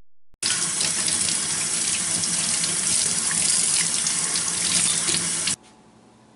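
Tap water running from a faucet into a utility sink as northern pike fillets are rinsed by hand under the stream. It stops abruptly about five and a half seconds in, leaving only a faint hiss.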